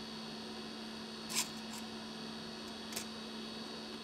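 Steady electrical hum with a faint high whine over it, broken by a sharp click about a second and a half in and a fainter click about three seconds in.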